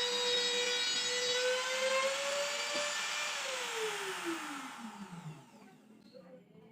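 Electric power tool running at full speed with a steady whine, then switched off about three seconds in and spinning down, its pitch falling as it winds down to a stop.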